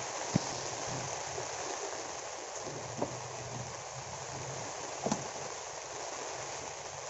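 Steady hiss of rain, with a sharp knock about half a second in and two fainter clicks later.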